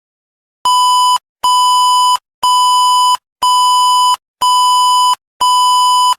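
Six buzzy electronic beeps at one steady pitch, about one a second, each lasting most of a second: the alert tone of a mock Emergency Alert System broadcast.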